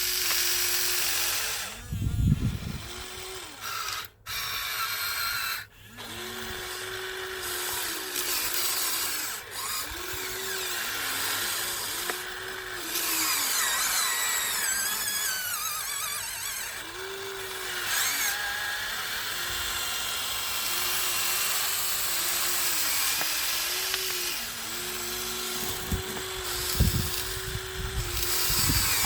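Small electric gear motors of a Huina 1593 RC excavator whining as the boom, arm and bucket work, starting and stopping again and again and stepping up and down in pitch. There are low thumps about two seconds in and near the end.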